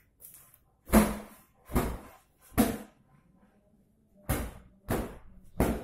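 Footsteps in flip-flops slapping on a tiled floor at a walking pace: three steps, a pause of about a second and a half, then three more.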